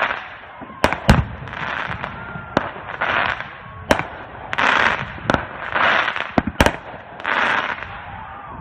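Fireworks going off: a string of about seven sharp bangs, interleaved with bursts of hissing noise that recur roughly every second and a half.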